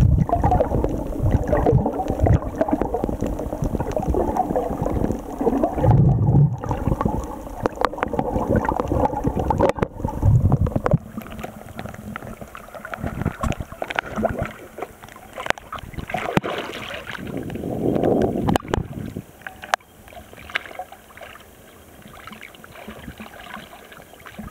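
Water rushing and gurgling over a camera held underwater, a dense low rumble. About eleven seconds in the camera breaks the surface, and the sound turns to lighter sloshing of small waves against it, with scattered clicks and splashes.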